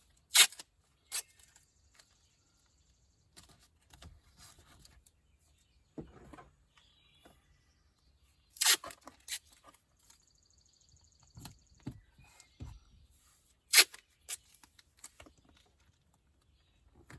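Masking tape being pulled off the roll and torn: a handful of short, sharp rips, with quieter handling noises between them. The tape is 2-inch-wide 3M masking tape.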